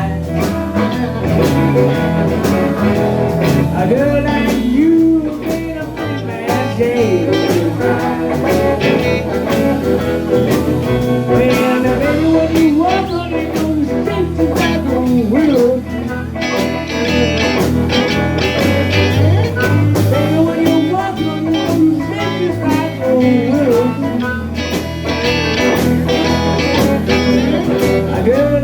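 Live blues band playing, a guitar lead with bending notes over a steady bass line.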